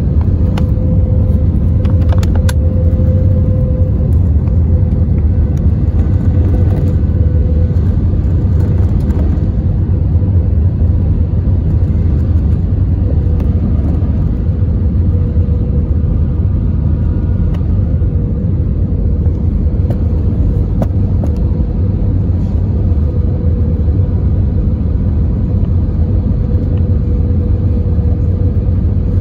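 Steady cabin noise inside an Airbus airliner in flight: a loud, even rumble of engines and rushing air, with a constant droning tone running through it. A couple of faint clicks come about two seconds in.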